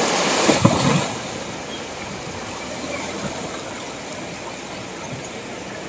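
A car wading through floodwater on a street, its tyres churning up a loud wash of water for about the first second; after that, a steady rush of floodwater flowing along the road.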